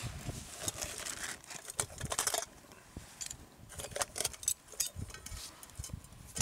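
Metal camp cookware and cutlery being handled, with scattered clinks and rattles in two busier spells.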